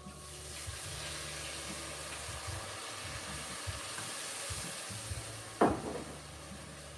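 Red wine poured into a hot enameled Dutch oven, hissing and sizzling hard as it hits the hot oil and browned bits on the bottom: the deglazing sizzle. The sizzle eases off after about five seconds, and a single short knock sounds about five and a half seconds in.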